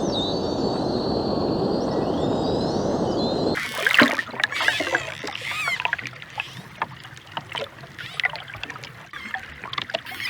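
Underwater recording of dolphins: whistles gliding up and down above a steady rush of water noise, then, about three and a half seconds in, a sudden change to a clearer recording of dolphin echolocation clicks with many rising and falling whistles and squeaks.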